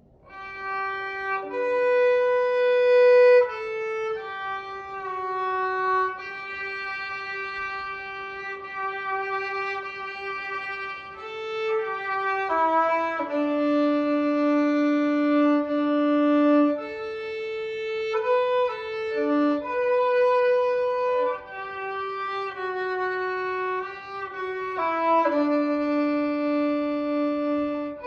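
Background music: a slow melody of long, held notes on a single bowed-string-like instrument.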